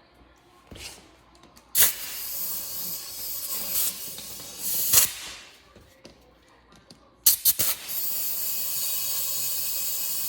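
Compressed air hissing into a snowblower tire that is not yet seated on its rim, some of it escaping past the loose bead. It comes in two bursts of about three seconds each, and each starts abruptly.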